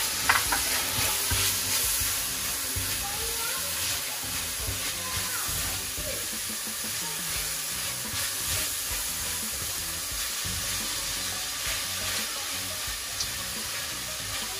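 Chopped vegetables and pineapple sizzling steadily as they fry in a pan, with one sharp clink just after the start.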